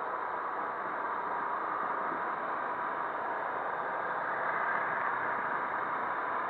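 Motorcycle riding at a low, steady pace: engine running with wind noise on the bike-mounted camera's microphone, steady throughout.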